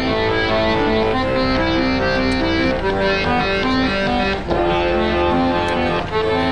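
Background music: a melody of sustained instrumental notes that step from one pitch to the next.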